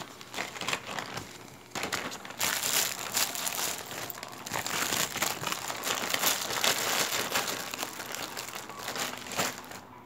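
Small clear plastic bag crinkling and rustling as it is handled, starting about two seconds in and going on almost to the end.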